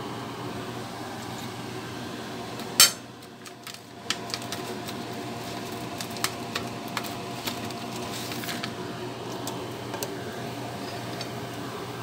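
Dry nurungji (scorched rice crackers) being handled and broken apart in a crinkly plastic bag: scattered sharp clicks and crackles, after one loud knock about three seconds in, over a steady background hum.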